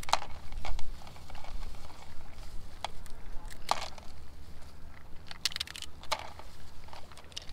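Shears snipping through green crab shells to cut bait, making irregular sharp crunches every second or so.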